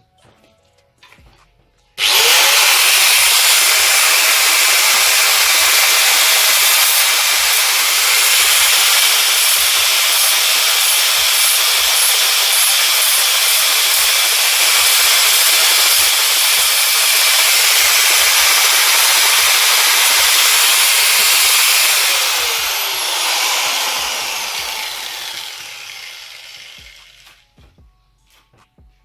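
Electric power tool sanding steel welds on a bicycle frame: it starts suddenly, runs steadily for about twenty seconds, then is switched off and spins down with a falling whine over several seconds.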